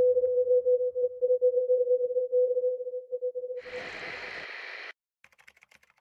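A steady, wavering electronic tone that fades out after about three and a half seconds, followed by a whoosh lasting about a second that cuts off suddenly, then faint ticking.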